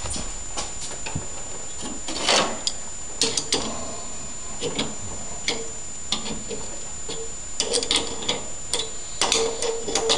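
Adjustable wrench clicking and scraping against the engine's oil drain plug as it is fitted and turned: irregular metal clicks and taps with short squeaks, busier in the second half.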